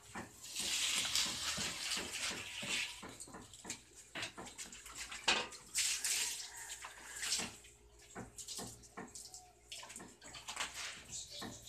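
Wafer batter hissing and sizzling on hot hinged iron barquillo plates over gas burners, in two loud bursts, with many light metal clicks and clanks as the plates are opened and shut.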